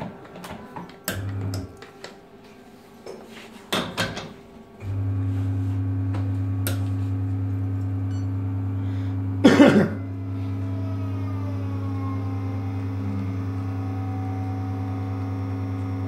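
Sanremo Opera espresso machine's pump kicking in about five seconds in and running with a steady low hum through a 9-bar espresso extraction. Before it come a few clicks and knocks as the portafilter is locked in and the group button pressed, and one brief loud clatter breaks in partway through the extraction.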